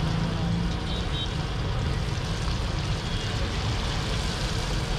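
Steady background din of a street food stall: an egg frying on a large flat iron griddle over a gas burner, with a low rumble of street traffic underneath.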